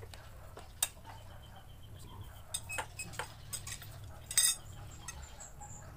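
Metal tubes of a baby rocking chair's frame clinking and knocking as the parts are handled and fitted together, in scattered sharp clicks with the loudest short rattle about four and a half seconds in.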